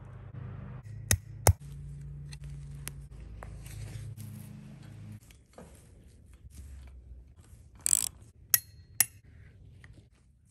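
Hands working a wire fish tape and strap through tent tubing: rustling handling noise with several sharp clicks, two about a second in and three more near the end.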